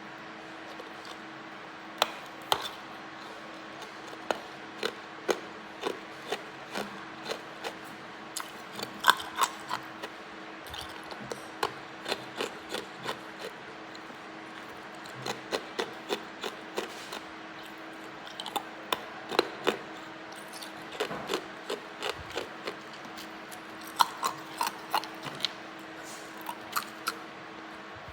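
Hard ice being bitten and chewed up close: a long run of sharp, irregular crunches and cracks in clusters of several bites. A faint steady hum lies underneath.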